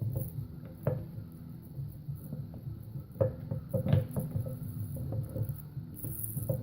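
Scattered light knocks and clicks of wood and tools being handled during a cutting-board glue-up, over a steady low hum; the sharpest knocks come about three and four seconds in.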